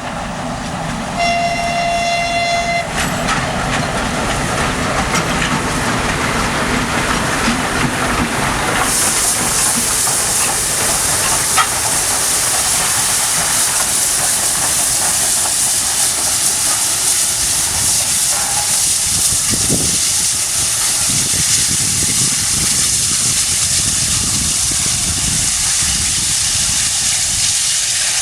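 Soviet L-class steam locomotive: a short whistle blast about a second in, over a steady rumble, then about nine seconds in a loud hiss of escaping steam starts suddenly and carries on.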